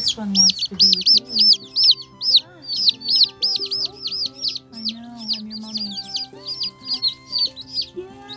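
A brood of day-old Plymouth Rock chicks peeping nonstop: short, high cheeps that rise and fall, several a second from many chicks at once, overlapping.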